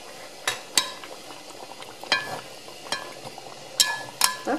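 Meat sizzling as it fries in oil in a kazan, being turned so the other side browns. A metal skimmer clinks and rings against the pot about five times.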